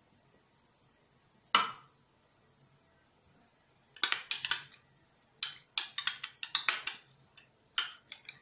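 Spoon clinking and scraping against a glass baking dish while spreading a thick cream mixture, in short sharp strokes: one at about a second and a half, then a quick run of them from about four seconds in.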